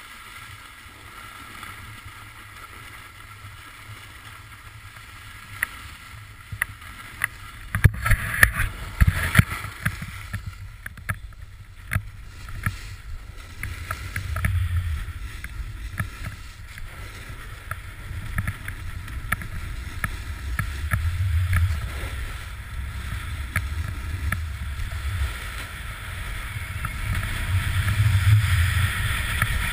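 Wind buffeting a GoPro camera on a ski pole during a snowboard descent, a low rumble over the hiss of the board sliding on snow. A run of sharp knocks comes about six to ten seconds in, and the rush grows louder near the end.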